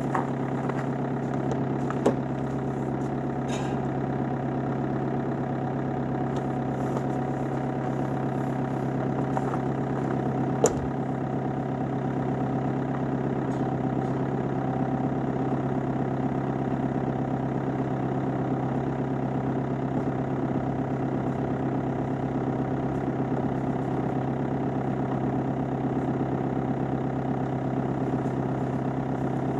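BMW E46 320d's four-cylinder turbodiesel idling steadily at the exhaust after a cold start, with no revving. Two brief sharp clicks cut in, one about two seconds in and one about ten seconds later.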